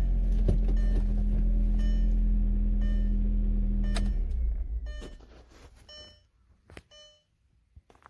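2000 Audi TT's 1.8-litre turbo four-cylinder idling steadily, then switched off about four seconds in and running down within a second. A short electronic chime beeps about once a second throughout, continuing after the engine stops.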